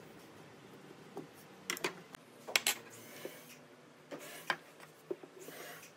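A scattered series of light clicks and wooden knocks as a pencil, a wooden straightedge and a log are handled on a wooden workbench, with a short scratchy stroke near the end.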